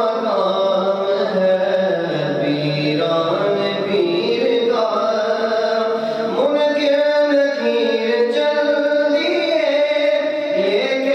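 A man singing a nasheed solo into a microphone, with long held notes that slide from one pitch to the next.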